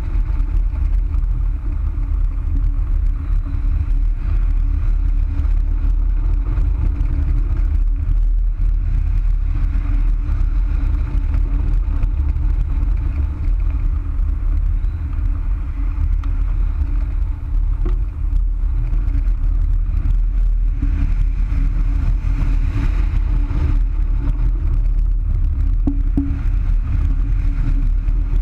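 Wind rushing over a wing-mounted action camera on a hang glider in flight: a loud, steady low rumble with no break.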